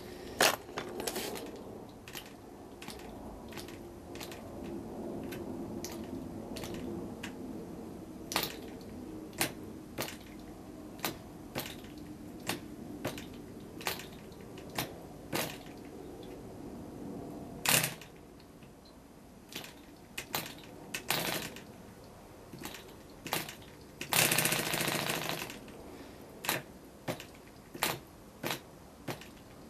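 PAW 100 model diesel engine being flicked over by hand by its propeller, a sharp snap at each flick, roughly once a second and unevenly spaced. About three-quarters of the way in there is one longer, louder burst lasting about a second. The engine is proving hard to start.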